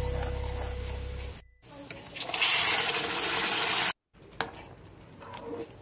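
Tadka of chopped onion, garlic and dried red chillies sizzling in hot oil in a wok: a loud, steady hiss that cuts off suddenly after about two seconds. Guitar music fades out just before it.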